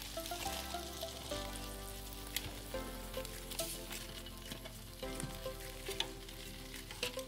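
Hot chicken drumsticks sizzling in an air fryer basket as they are turned over with tongs, with a few light clicks of the tongs against the basket and meat.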